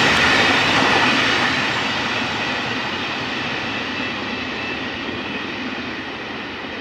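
Freight train of hopper wagons rolling away, its steel wheels rumbling and clattering on the rails. The sound fades steadily as the train recedes.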